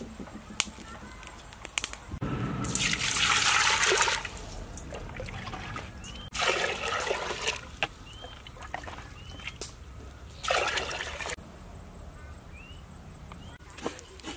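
Water being poured into a stainless steel pot in three pours. The first is the longest and loudest, about two seconds, and the last is brief.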